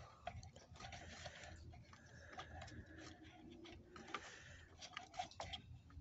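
Faint, scattered small clicks and crackles of fingers handling a kerosene heater's igniter wire and its push-on connector at the battery box.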